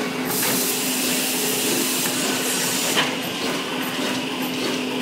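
Clear-book sealing and welding machine running with a steady hum. A loud hiss lasts about two and a half seconds, then a sharp click comes about three seconds in.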